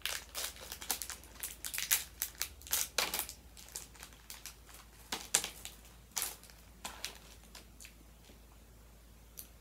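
Small clear plastic bag of sprinkles crinkling as it is opened and handled, a rapid run of crackles that thins out after about seven seconds.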